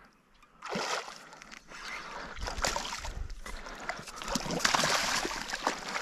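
A hooked channel catfish thrashing and splashing at the water's surface as it is drawn to the bank and into a landing net. The splashing starts suddenly about a second in and grows louder toward the end.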